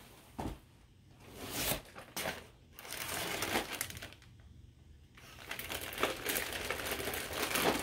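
Hands rummaging in a cardboard shipping box: cardboard scraping and plastic packaging crinkling in short, scattered bursts, turning into steadier rustling from about six seconds in.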